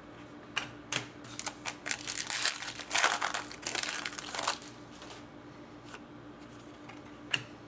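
Foil trading-card pack wrapper being torn open and crinkled, with rustles and clicks of the cards being handled, busiest in the first half and then dying down to a single click near the end.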